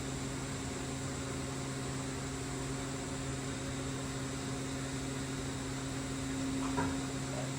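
Steady low electric hum of a robot cell's motors and fans, with a faint servo whine that swells near the end as the robot arm is jogged, and one light click about seven seconds in.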